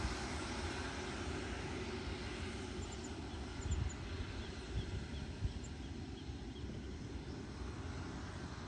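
Distant Embraer Phenom 300 business jet on the runway, its twin turbofans running at low power with a steady rushing noise that slowly fades, with low rumbles of wind on the microphone.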